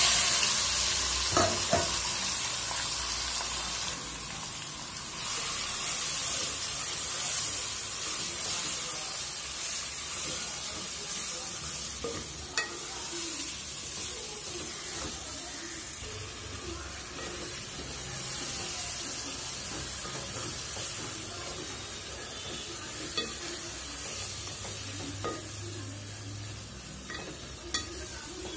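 Marinated duck meat sizzling in hot mustard oil in a stainless steel pot while it is stirred with a spatula, with a few sharp knocks of the spatula against the pot. The sizzle is loudest at the start, just after the meat goes into the oil, and slowly dies down.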